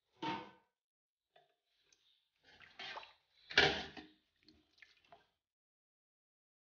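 Metal ladle stirring and scooping wet fermented rice (Guangxi sour porridge) in a stainless-steel pot: several short wet scoops and scrapes, the loudest about three and a half seconds in.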